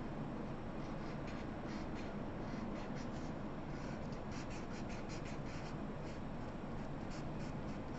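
Crayola felt-tip marker rubbing back and forth on paper as an area is coloured in: a continuous run of short, soft scratchy strokes, several a second.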